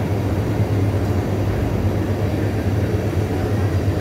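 Steady low droning hum of a supermarket's indoor machinery, such as its air handling and fruit chillers, with no breaks or changes.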